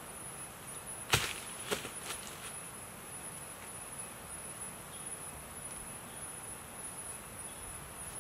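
Steady high-pitched insect trill, like a cricket's, over quiet forest background. A sharp knock a little over a second in, then two fainter ones within the next second.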